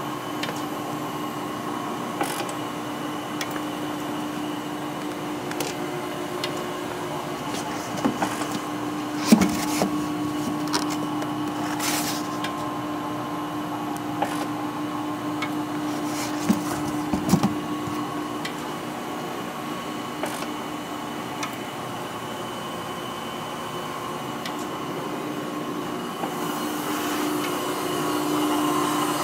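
CCI Citron surface grinder running, its motors giving a steady hum with several fixed tones. A few scattered knocks and clicks sound over it, and a hiss grows louder near the end.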